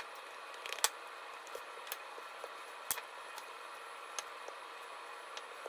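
Scattered light clicks and taps of a wooden rolling pin and hands working bread dough on a silicone baking mat, about one a second, over a steady faint hiss.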